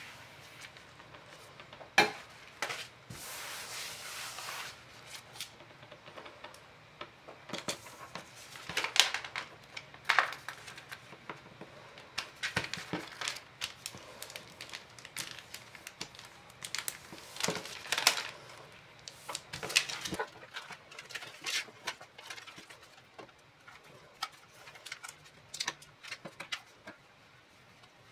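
A clear plastic sheet crinkling and rustling as hands handle and smooth it on a tabletop, with irregular taps and clicks.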